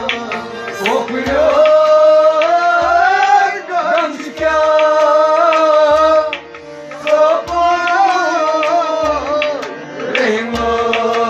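A man sings a Kashmiri Sufi kalam over a harmonium's held reed tones. A hand drum thumps about every second and a half beneath the singing.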